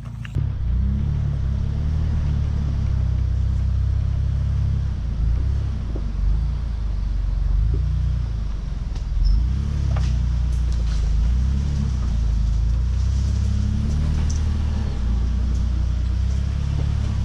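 Off-road truck engine running at low speed as the truck crawls over a trail obstacle, a steady low rumble that rises and falls a little with the throttle. A few sharp knocks come through about six and ten seconds in.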